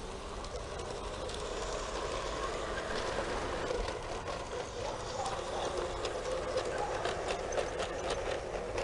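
LGB garden-scale model train running on its outdoor track: a steady motor and wheel hum with irregular clicks from the wheels on the rails, which come thicker in the second half.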